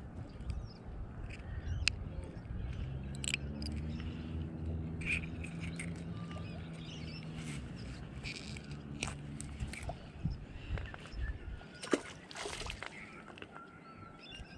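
Outdoor ambience with scattered clicks and rustles of hands handling fishing tackle and bait. A low steady hum runs for a few seconds in the middle, and faint bird chirps come near the end.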